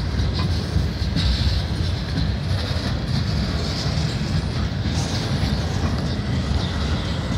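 Freight train's cars rolling past, a steady, loud rumble of steel wheels on the rails. A higher hiss swells and fades a few times over it.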